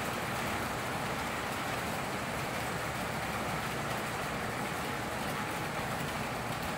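150-car S gauge model freight train running on the layout track: a steady rolling noise of many wheels on the rails. A faint steady tone joins it near the end.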